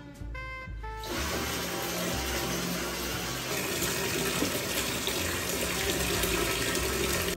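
Water from a wall tap pouring into a plastic spin-mop bucket. It is a steady splashing rush that starts about a second in and stops abruptly at the end.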